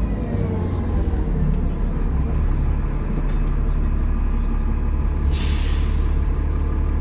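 Dennis Trident double-decker bus's diesel engine running with a steady low rumble, then a short sharp hiss of air from the air brakes about five seconds in, lasting about a second.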